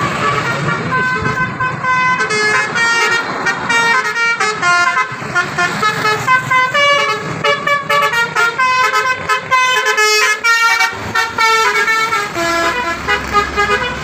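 Telolet horn on a coach bus, a multi-tone horn playing a quick melody of short stepping notes over and over as the bus passes.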